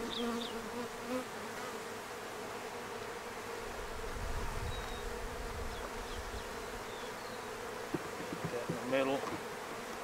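Honey bees buzzing around an opened hive: a steady hum from many bees in flight.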